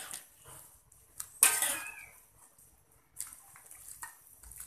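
Metal spatula stirring a wok of simmering coconut-milk fish-head curry: the curry sloshes and the spatula scrapes and knocks against the pan, loudest once about a second and a half in.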